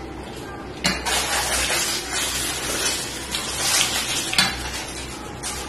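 Loud, close-up crunching and crackling of a mouthful of crisp fried fish being chewed. It starts suddenly about a second in and dies down after about four seconds.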